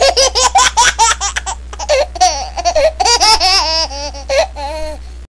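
High-pitched laughter: a quick run of short laughs, about six a second, then longer, wavering laughing calls, over a steady low hum. It cuts off suddenly at the end.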